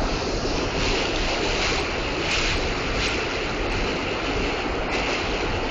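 New York City subway train running between stations, heard from inside the car: a loud, steady rush of wheel and tunnel noise that swells briefly several times.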